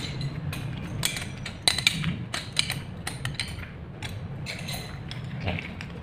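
Metal clicks and clinks as a refrigerant pipe is shifted and clamped in a flaring tool's clamp bar. The sharpest cluster comes about two seconds in, over a steady low hum.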